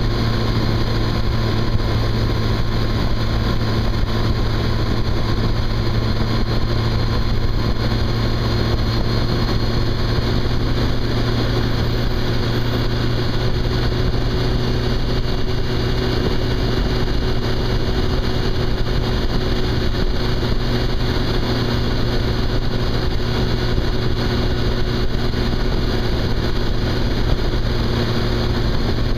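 Yamaha FJR1300's inline-four engine running at a steady cruising speed, its note holding constant, under an even rush of wind and road noise.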